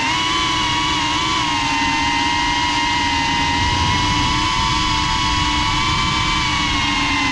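FPV quadcopter's brushless motors and propellers whining, recorded by the GoPro mounted on the drone. The pitch holds fairly steady at cruising throttle and dips slightly near the end.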